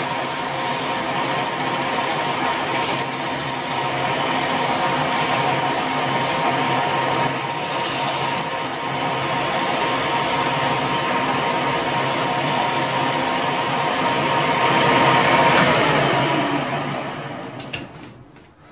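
Metal lathe running with emery cloth held against the spinning steel shaft, a steady machine tone under the hiss of the abrasive linishing it down to size. About sixteen seconds in, the lathe winds down and fades, its pitch falling.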